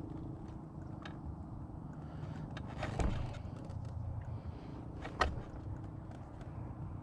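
Off-road vehicle engine running steadily while riding, with a few sharp knocks or rattles, about two seconds apart.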